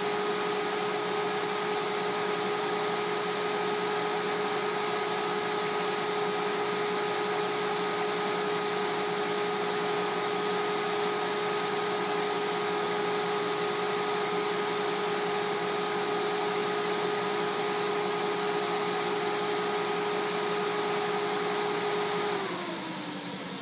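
Jaguar XJS 6.0-litre V12 idling steadily, its idle now stable after a vacuum leak at the Vee top plate gasket and breather seals was fixed, with the electric radiator fans running at full speed over it as a loud whining hum. About 22 seconds in the fans cut out: the whine winds down in pitch and the sound drops to the quieter engine idle.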